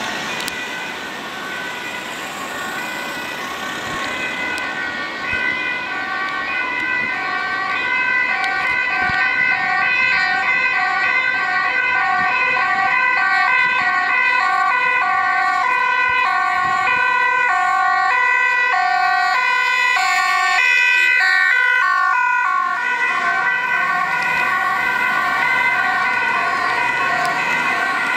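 Dutch ambulance two-tone sirens on an urgent run, switching steadily between a high and a low note. They grow louder from about five seconds in, and the pitch bends downward around twenty seconds in as the vehicles pass. Road traffic runs underneath.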